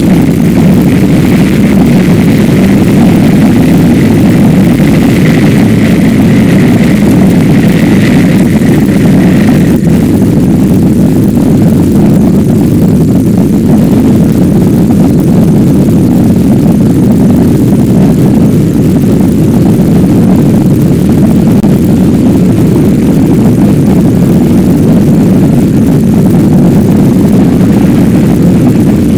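Zenit rocket's first-stage engines heard from the ground during ascent: a steady, deep rumble, with a faint high whine that dies away about ten seconds in.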